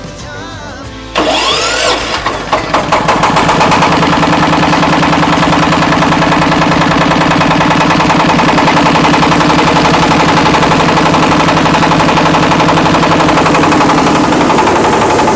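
Single-cylinder Jiang Fa diesel engine on a rice-milling machine being started: about a second in the starter cranks it with a brief whine, it fires unevenly and catches, and from about three seconds it runs steadily with an even, rapid beat.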